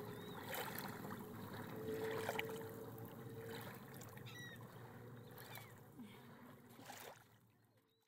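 Steady water-like washing noise with a few short high chirps about halfway through, fading out near the end.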